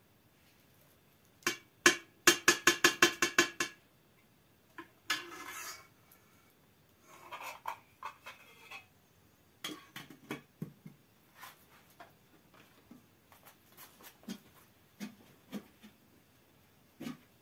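A metal spoon rapped quickly about a dozen times against a metal tin or pot, each strike ringing, followed by a short scraping rush and then scattered light clinks and knocks of kitchen utensils.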